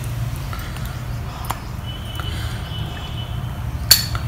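A spoon clinks sharply once against a glass serving bowl near the end, with a smaller tap about halfway through, as milk-soaked puris are lifted over; milk drips lightly over a steady low hum.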